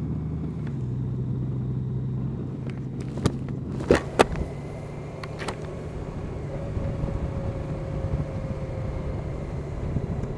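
Honda Gold Wing flat-six engine running steadily at low road speed, with tyre hiss from a wet road; a few sharp clicks about three to four seconds in.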